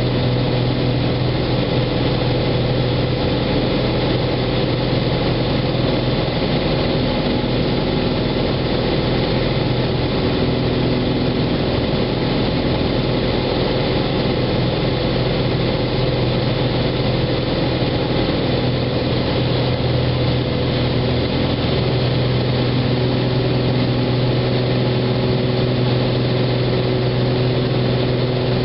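Cessna 206 Turbo's turbocharged six-cylinder piston engine and propeller heard from inside the cabin during the climb after takeoff: a steady, unchanging drone with a strong low hum.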